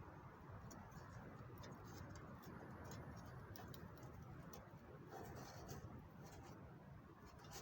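Faint, irregular crackling of a wood fire, small scattered ticks over a low steady background hiss.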